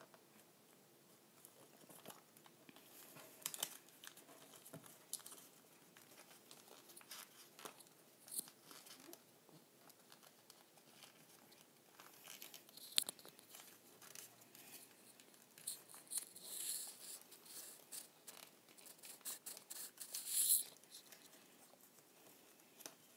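A sheet of paper being folded and creased by hand: soft rustling and crinkling broken by scattered sharp crackles, busiest in the last third.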